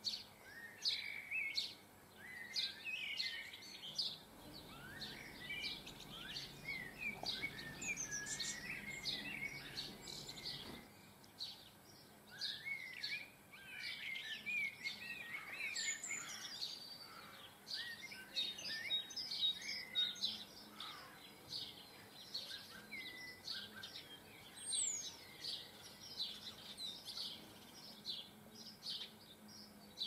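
Small garden birds chirping and twittering. A dense stream of short, high chirps and quick warbling phrases from several birds overlaps throughout.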